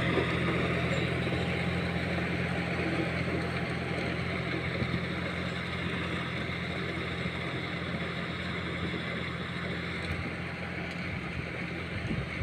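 John Deere 5050E tractor's diesel engine running steadily while it drives a rotary tiller through dry soil, the sound slowly fading.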